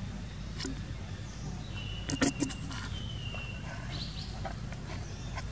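Outdoor ambience with a steady low rumble. A quick cluster of sharp clicks comes about two seconds in, and a thin, high, steady whine, insect-like, lasts about two seconds around the middle.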